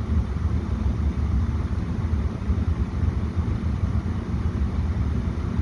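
Vehicle engine running, heard from inside the cabin as a steady low rumble.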